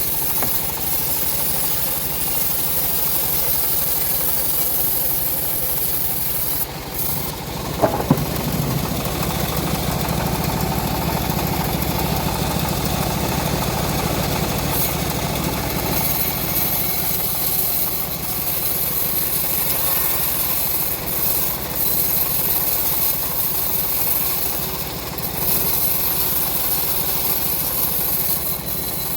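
Homemade engine-driven bandsaw mill running steadily as it saws a teak log into beams, with a single sharp knock about eight seconds in.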